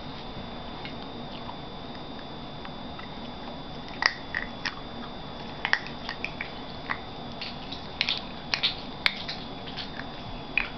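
Pop Rocks popping candy crackling in a child's mouth: short, sharp, irregular pops that start about four seconds in and come thicker near the end, over a faint steady high-pitched tone.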